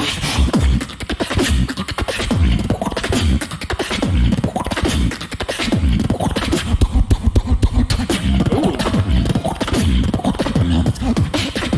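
Human beatboxing into a microphone: a fast, dense run of clicks and drum-like hits over recurring deep bass notes.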